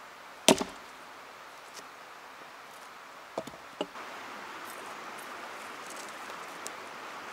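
Wood being chopped or struck: one sharp, loud knock about half a second in, then two lighter knocks about three and a half seconds in, over a steady background hiss.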